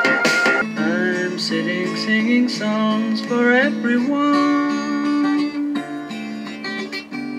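A vinyl record playing on a small Jensen JTA-230 record player: guitar-led pop music heard through its built-in stereo speakers, with a thin, bass-light sound.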